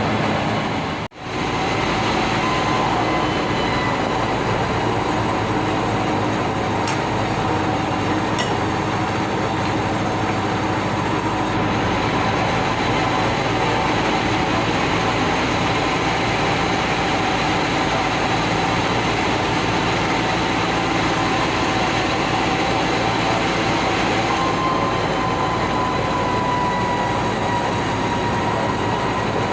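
Sawmill band saw and its machinery running, a loud steady mechanical noise with a steady whine, broken by a brief dropout about a second in.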